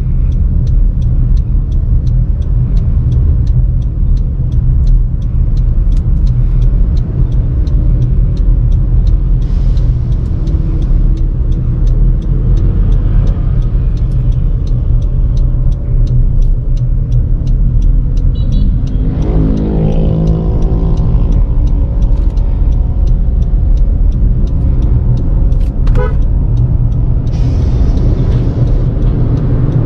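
Inside the cabin of a 2018 Honda CR-V Turbo on the move: a steady low rumble of road and engine noise. About two-thirds in, an engine note rises in pitch as the car speeds up, and a short click comes near the end.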